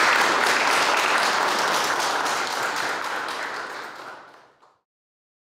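Audience applauding, dying away and fading out about four and a half seconds in.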